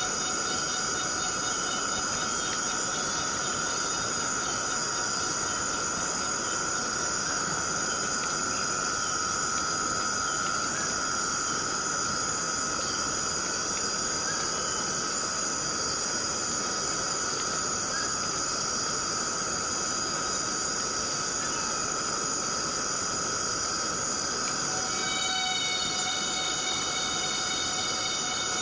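Rainforest ambience: rain falls as a steady hiss under a continuous insect drone held at several steady pitches. About 25 seconds in, another steady droning call joins at lower pitches.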